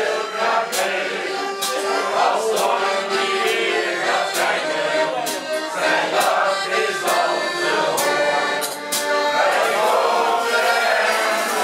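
A group of men and women singing a song together to accordion accompaniment, with a sharp tap marking roughly every beat, about once a second.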